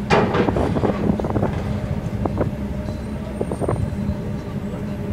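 Steady low hum of a docked car ferry's engines running at berth, with a sharp clatter near the start and scattered light knocks.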